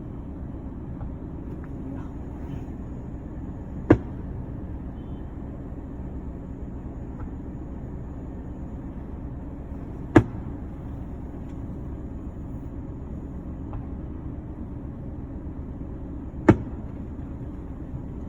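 Fireworks shells bursting: three sharp bangs about six seconds apart, over a steady low rumble.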